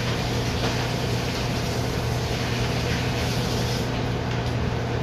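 Commercial kitchen exhaust hood fan running: a steady rushing with a low hum.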